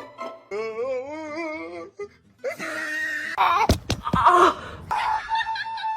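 Music with a wavering, vibrato-like pitched tone, then a busier stretch with two sharp thuds about three and a half seconds in.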